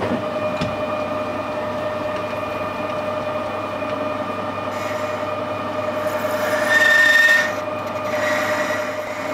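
Metal lathe running with a steady whine from the spindle drive, while a carbide-insert turning tool faces the end of the spinning metal bar. The cut grows louder with a higher ringing tone about seven seconds in.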